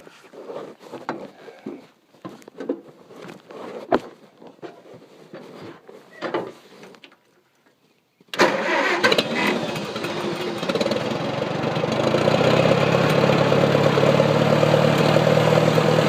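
Scattered knocks and clicks, a moment's quiet, then an engine starts suddenly about eight seconds in and runs steadily, settling into an even idle.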